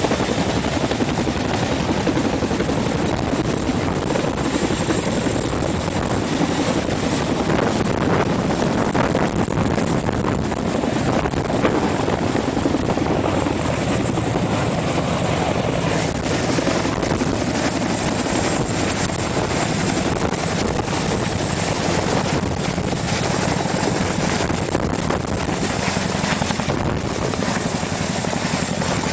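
Boeing CH-47 Chinook tandem-rotor helicopter running steadily, with a continuous fast rotor chop and a thin, steady high whine above it.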